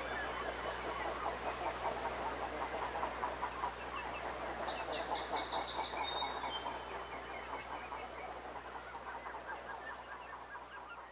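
Dense chorus of rapid, clucking animal calls, with a bird's high chirps about five seconds in; the sound fades toward the end.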